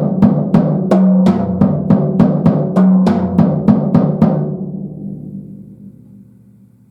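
TAMA Silverstar Metro-JAM drum kit with birch shells being played: a run of drum hits, about three a second, with the toms' pitched tones ringing between strokes. The playing stops about four seconds in and the drums are left to ring out and fade away.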